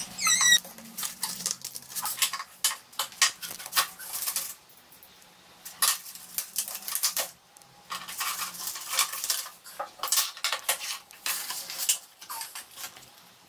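Plastic and cardboard toy packaging being handled on a tabletop: a run of small clicks, taps and rustles as ties are snipped and plastic pieces are pulled off the backing card, with a short squeak right at the start and a couple of brief pauses.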